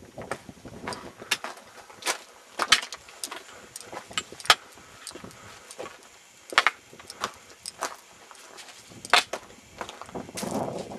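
Footsteps crunching on loose rock and gravel on a rocky mountain path, with small stones clicking and clattering at irregular steps, and a short rough swell near the end.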